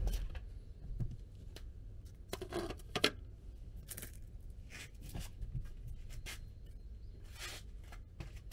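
A plate set down and shifted on a concrete floor, with a series of short clicks and scrapes, the loudest a little under halfway through, along with shoes scuffing on the concrete.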